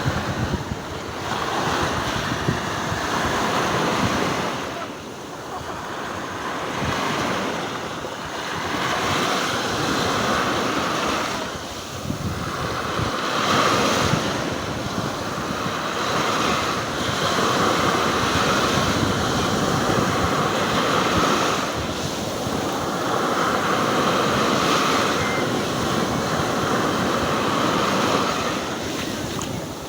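Stormy sea surf: waves breaking and washing in one after another, the rush swelling and ebbing every few seconds, with wind buffeting the microphone.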